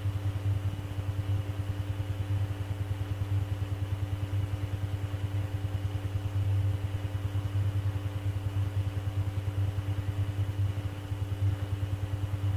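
Steady low electrical hum with a few faint steady tones above it: the background noise of an air traffic control radio recording between transmissions.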